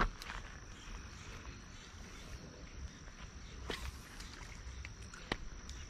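Faint steady drone of insects in summer vegetation, with a few brief sharp clicks about a second apart in time.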